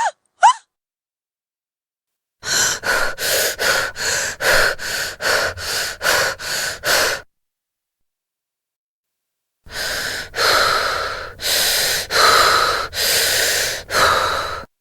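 A woman's breath sounds: a brief high squeak-like gasp at the very start, then rapid short panting breaths, about a dozen in under five seconds. After a pause comes a slower run of six longer, heavier gasping breaths through the mouth.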